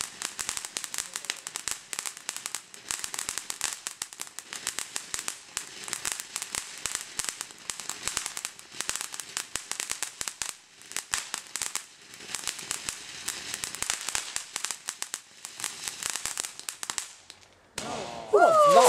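Consumer fireworks crackling: a dense, continuous spray of tiny pops and crackles, like crackling stars or a crackle cake going off. The crackling stops near the end and a louder sound with a falling pitch follows.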